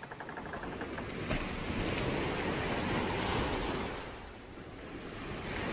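Sea waves washing in, a rushing noise that swells, ebbs about four seconds in and builds again.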